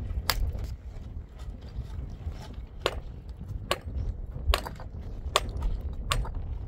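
A hammer striking rough stones to dress them for a stone wall: a series of sharp cracks, a couple close together near the start, then after a pause roughly one a second.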